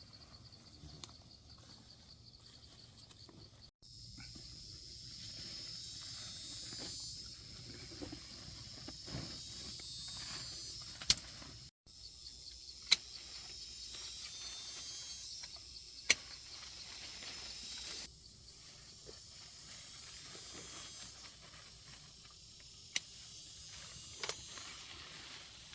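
Insects chirring outdoors: a fast, even pulsing at first, then a dense high-pitched chorus, broken by a few sharp clicks.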